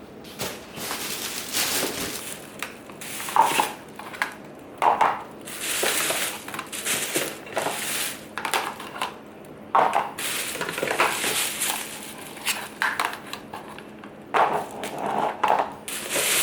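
Crunching and crackling of crisp food in about a dozen irregular strokes, some short and some drawn out.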